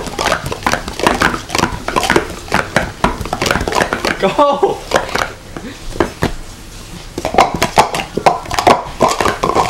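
Plastic sport-stacking cups clacking rapidly as two stackers run their 3-6-3 and 3-3-3 sequences, upstacking the cups into pyramids and sweeping them back down on stacking mats: a dense, fast run of sharp plastic clicks. A voice calls "Go" about four seconds in.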